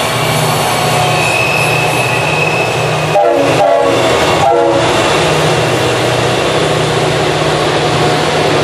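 Two EMD SD40E helper locomotives at the rear of a freight train passing with their diesel engines running, over the rolling rumble of the train's wheels. A locomotive horn sounds a few short blasts from about three seconds in.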